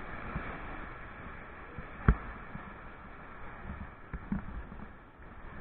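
Sea surf washing onto a sandy beach, a steady hiss of waves. There is one sharp knock about two seconds in and a few softer thumps.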